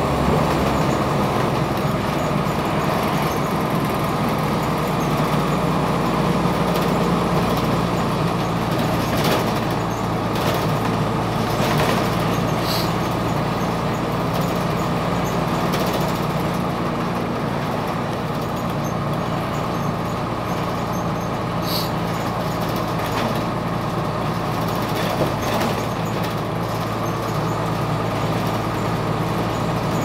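Cabin noise of a 2002 Blue Bird CS transit bus: its Cummins ISC diesel engine running steadily under a wash of road and interior noise, with scattered rattles and clicks and two brief high squeaks.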